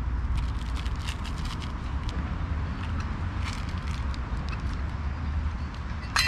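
Small wood-burning twig stove crackling faintly under a metal pot, with a steady low rumble of distant road traffic behind it. A short sharp metallic clink about six seconds in.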